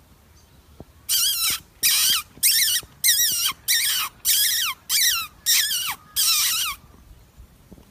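A hunter's mouth squeak, nine short high-pitched squeaks with a wavering pitch, made to imitate a small animal in distress and call a fox in.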